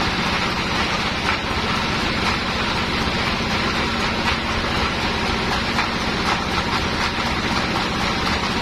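Sawmill machinery running steadily: a low, even motor hum under a continuous hiss, with a few faint clicks.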